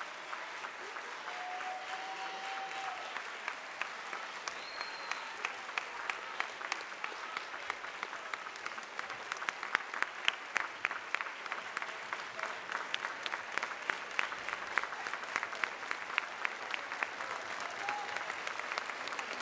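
Large auditorium audience applauding steadily, a dense wash of clapping with individual sharp claps standing out more from about halfway through.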